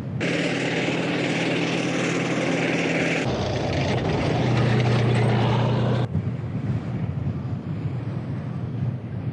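Tanks on the move: a steady low engine drone with the hiss and clatter of tracks in sand. It comes in edited stretches that cut off abruptly about three and six seconds in, and the last stretch is quieter.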